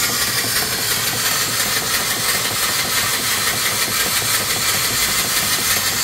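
Small mill steam engine with a 3-inch bore and 4-inch stroke running steadily at about 200 RPM, driving an alternator that charges a battery, with a steady loud hiss of exhaust steam blowing out of its exhaust hose.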